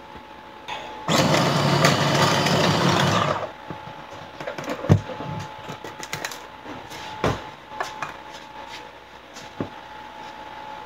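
Small electric food chopper running in one burst of about two and a half seconds, starting about a second in, as it blends butter with garlic cloves. Afterwards come a few separate knocks and clicks.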